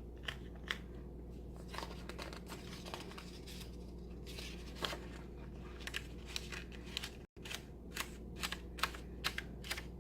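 Paper planner pages being handled and fitted into a disc-bound planner: a series of light clicks and snaps with paper rustling, more frequent in the second half, over a steady low hum.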